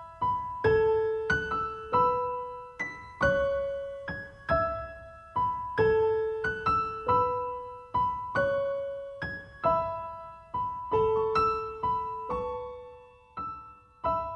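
Piano background music: a slow melody of single notes, each struck and left to ring out, about one or two a second.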